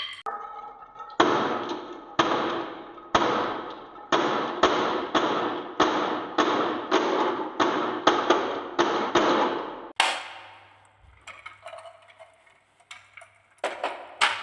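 Marbles rolling and clattering along a wooden marble-run track, in a string of abrupt starts every half second to a second. They go quiet for a few seconds with scattered light clicks, then a loud rush of rolling comes near the end.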